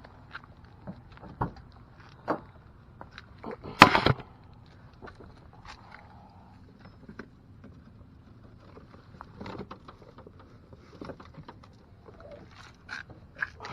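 Scattered knocks and clicks of gear being handled aboard a boat, with one louder clatter about four seconds in, over a faint low steady hum.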